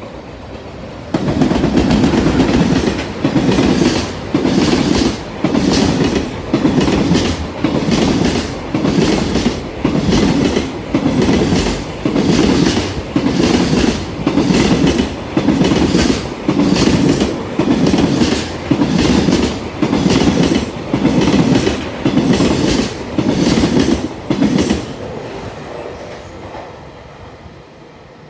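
Wheels of a container freight train hauled by an EH500 electric locomotive, clattering over rail joints at speed. The loud, regular clack-clack starts suddenly about a second in and beats about once a second as each wagon passes. It fades to a dying rumble near the end as the last wagon goes by.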